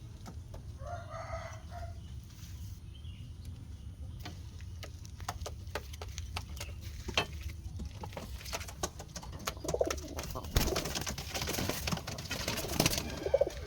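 Domestic pigeons cooing in their coop, among a scatter of sharp clicks and taps that grow busier, with a burst of dense rustling toward the end.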